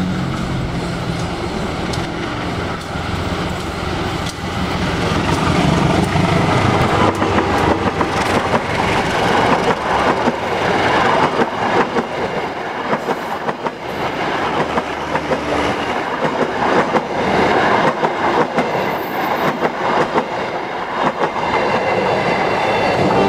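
CC 203 diesel-electric locomotive's engine running as it approaches and passes, followed by its passenger coaches rolling by with a dense clickety-clack of wheels over the rail joints.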